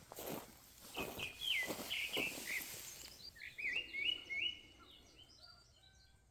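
Songbird chirping in a series of short calls that step down in pitch, with a few soft knocks in the first couple of seconds; it fades away near the end.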